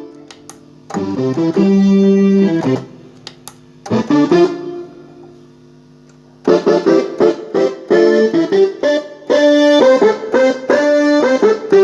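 S-Engine sound module played from a MIDI keyboard controller: a held chord, a short figure of notes, a quiet gap, then a quicker run of notes and chords in a plucked, piano-like voice.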